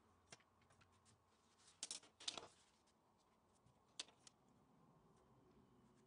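Faint handling noise from a long ruler being moved and laid across a stack of phyllo sheets on a countertop: a few light clicks, with a short cluster of louder taps and scrapes about two seconds in and another click about four seconds in.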